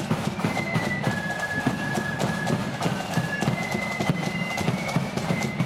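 Marching flute band playing a tune on flutes in unison, a melody of held high notes, over a steady beat of marching drums.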